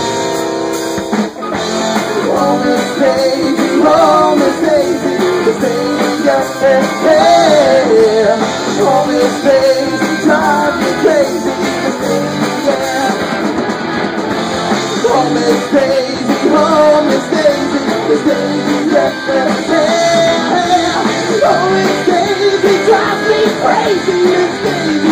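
Live rock band playing loud and without a break: electric guitars over a drum kit, with a melodic line bending in pitch above the mix.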